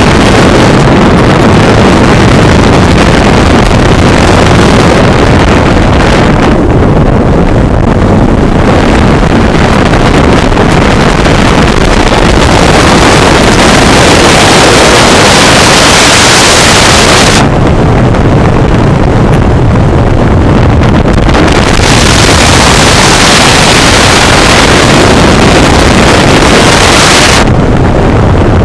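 Loud wind rushing over the microphone of a camera flying under an open parachute canopy, with the hiss growing and fading every few seconds as the airflow shifts.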